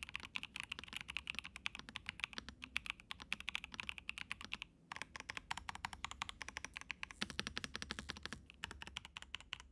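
Typing on a Pressplay Essential 75 mechanical keyboard with its stock switches and stock double-shot keycaps: a fast, steady run of keystrokes with a brief pause about halfway.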